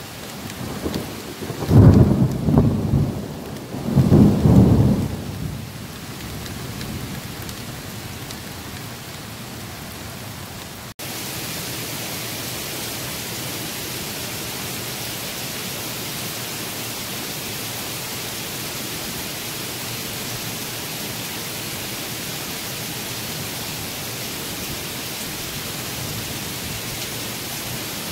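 Two loud thunder rumbles, about two and about four seconds in, over steady rain. About eleven seconds in the sound cuts abruptly to the louder, steady hiss of a heavy downpour.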